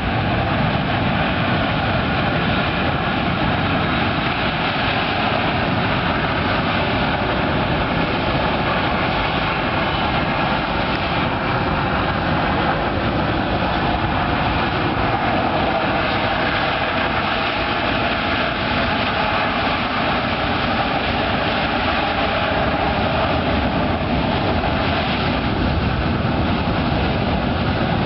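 The four turbofan engines of a C-17A Globemaster III running as the airliner-sized transport taxis on the ground, a steady roar with a faint high whine.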